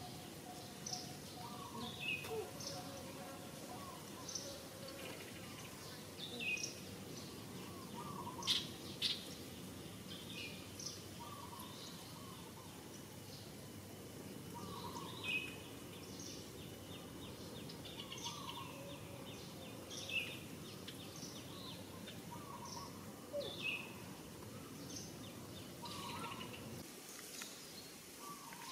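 Birds chirping outdoors, short calls repeating every second or two over a steady low background noise, with two sharper, louder sounds about eight and nine seconds in.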